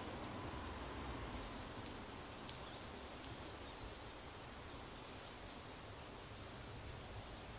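Quiet woodland ambience: a faint steady hiss with a few faint, short bird chirps, most of them in the first few seconds.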